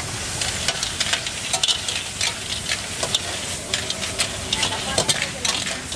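Metal spatulas stirring and scraping snails in their shells and greens around steel woks, with frequent sharp clinks over a steady sizzle of frying.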